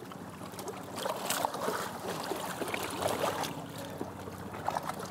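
Water sloshing and splashing around a large Goliath grouper held at the surface against a boat's swim platform, with many small crackling droplet sounds. A low steady hum runs underneath.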